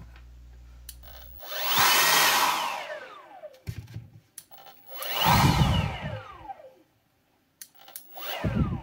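Brushless motor and fan of an EGO 56V LB5300 leaf blower pulsed three times from its repaired controller. Each pulse is a brief rush of air with a whine that falls in pitch as the fan coasts down. The third pulse, near the end, is shortest, and there are light clicks between them.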